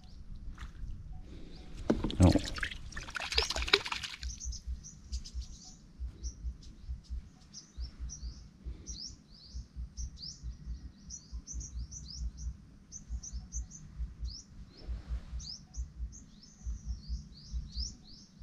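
Small birds chirping in quick, high, repeated notes, several a second, starting about four seconds in. Before that comes a brief loud rush of noise about two seconds in.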